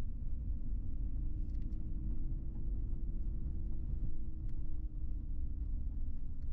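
2011 Chevrolet Silverado 1500's 5.3 L V8 pickup driving slowly, heard from inside the cab: a steady low engine and road rumble with a faint, even hum.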